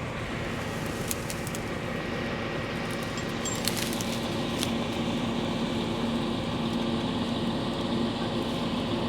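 An engine running steadily, its hum growing a little stronger about halfway through, with a few faint clicks.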